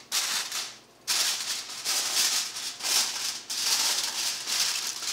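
Aluminium foil crinkling and rustling as it is handled and folded over a dish to cover it, in three stretches: a short one at the start, then two longer ones from about a second in with a brief pause between.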